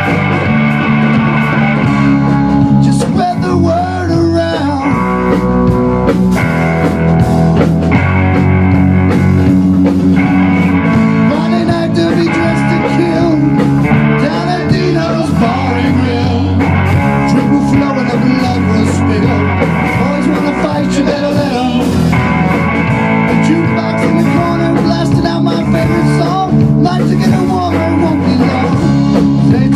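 Rock band playing live: electric guitar lines over electric bass and a drum kit.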